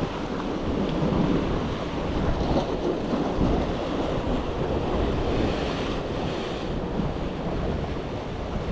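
Sea waves washing against the shore rocks in a steady wash, with wind buffeting the microphone.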